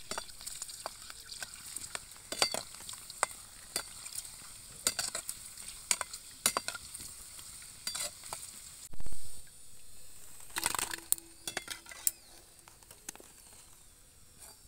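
Pani puri deep-frying in hot oil in a metal kadai, the oil sizzling steadily. A steel slotted ladle turns them and clinks and scrapes against the pan again and again.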